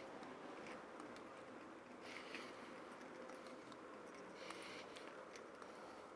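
Near silence: faint background noise with a few soft rustling swells and small ticks.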